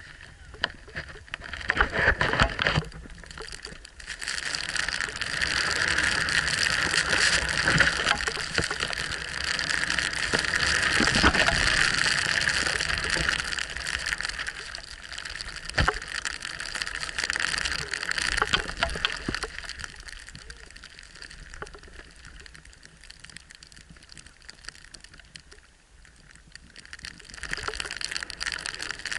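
Rushing hiss of deep powder snow sliding and spraying under a rider carving down a steep slope, mixed with air rushing over a close-up action-camera microphone. It swells and fades with the turns, with scattered knocks, dropping lower for a stretch after the middle before building again near the end.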